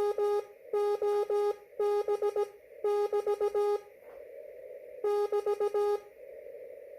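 Morse code (CW) from an amateur radio: a steady tone keyed in slow dots and dashes, sent in short groups with pauses, and receiver hiss between them. The keying stops about four seconds in, returns for one more group, and only the hiss remains near the end.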